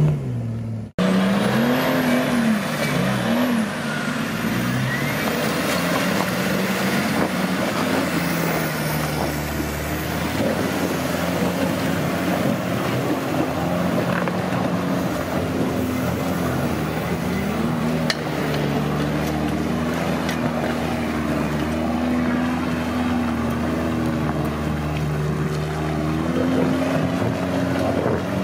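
Off-road 4x4 engine running under load, its pitch rising and falling as it is revved, over a steady rushing noise. The sound cuts out briefly about a second in.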